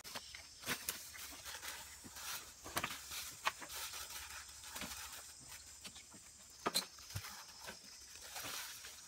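Scattered scrapes, scuffs and sharp knocks of hand work: soil being scooped from a hole and a man climbing onto a woven bamboo boat frame. The sharpest knocks come a little before 3 s, at about 3.5 s and near 7 s.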